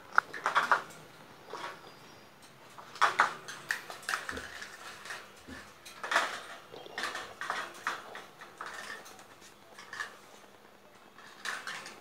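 Indian ringneck parakeets clambering over a wire cage: scattered metallic clinks and taps of beaks and claws on the wire, in irregular bursts.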